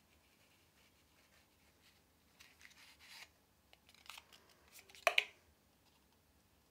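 Cardboard matchbox tray being slid open and handled: soft scrapes and rubbing of card on card, with a louder scuff about five seconds in.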